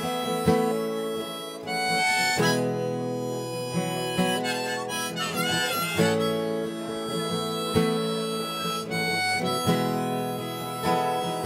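Harmonica on a neck rack with acoustic guitar, playing a song's instrumental introduction. The harmonica holds long notes, with a wavering passage about five seconds in.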